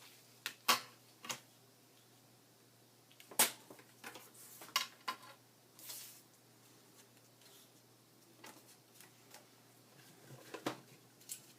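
Scattered light taps and clicks with a brief rustle of paper: hands handling paper-craft pieces and tools on a work table.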